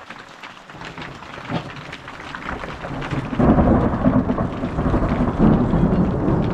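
Heavy rain falling, with a long rumble of thunder that comes in about halfway through and grows much louder.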